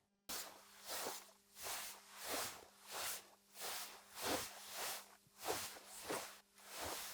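Fabric rustling as clothing is handled and rubbed, in a run of soft swishes about one every half second to a second. It cuts in just after a short silence at the start.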